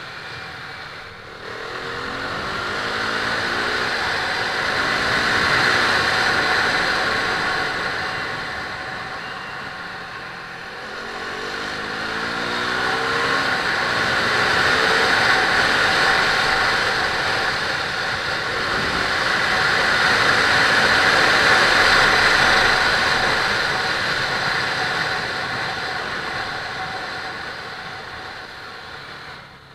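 KTM RC390's single-cylinder engine pulling under acceleration, its pitch climbing a few seconds in and again about a third of the way through, under a loud rush of wind on a helmet-mounted camera.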